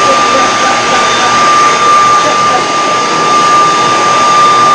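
Leaf blower running flat out: a loud, steady rush of air with a high whine.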